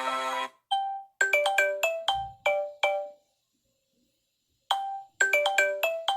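Samsung Galaxy S6 ringtone playing: a short melody of quick, bell-like notes lasting about two seconds, then a pause of about a second and a half, then the same phrase starting again. The tail of a previous, sustained ringtone cuts off about half a second in.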